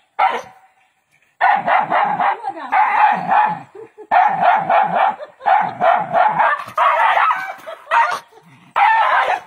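A dog barking in quick repeated bursts, starting about a second and a half in and going on almost without pause.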